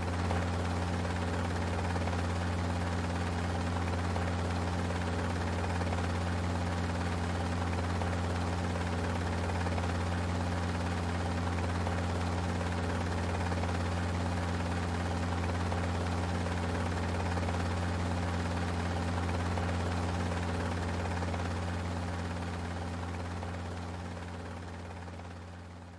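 Steady hum of a small quadcopter drone's propellers, holding one low pitch, fading out over the last few seconds.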